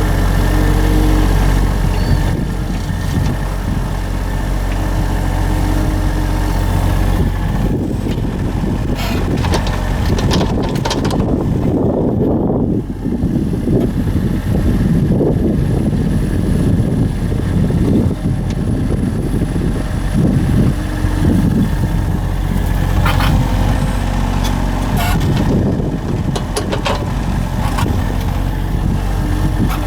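Small work-vehicle engine running steadily. Its sound rises and falls from about seven seconds in, and a few sharp knocks come near the end.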